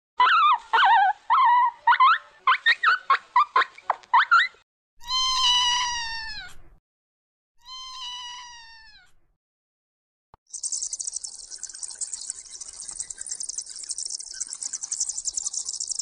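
Puppies whining and squealing in quick short cries for about four seconds. Then a cat meows twice, each meow falling in pitch. From about ten seconds in, a flock of chicks peeps in a dense, high-pitched chirping.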